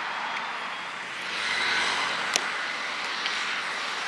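Rush of wind and road noise from a moving motorcycle in traffic, swelling for about a second a little after the start, with one sharp click near the middle.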